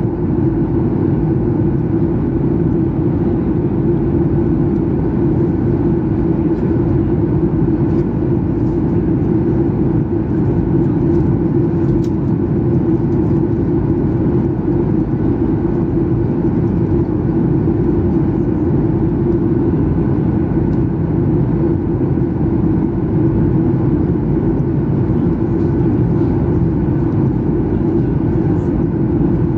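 Steady cabin noise inside a Boeing 737-800 in flight: the CFM56-7B jet engines and the airflow over the fuselage make an even, low drone that holds level throughout.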